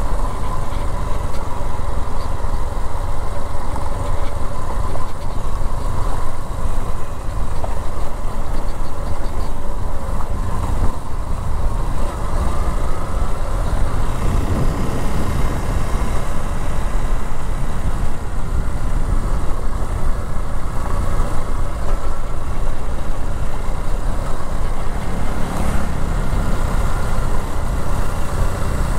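Yamaha XTZ 150 motorcycle's single-cylinder four-stroke engine running steadily under way, with a constant low rumble.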